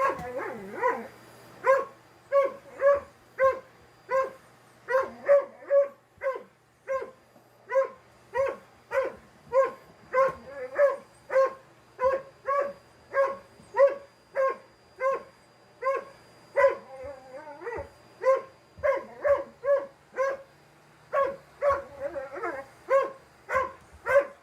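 Dalmatian barking at a vacuum cleaner, sharp barks repeated about two a second with only a couple of brief pauses.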